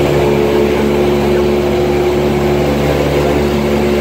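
Light aircraft's engine and propeller droning steadily in level flight, heard from inside the cabin.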